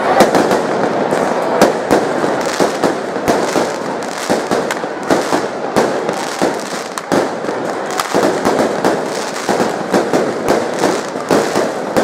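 Fireworks going off overhead: irregular sharp bangs and crackles, a few a second, over a continuous background of noise.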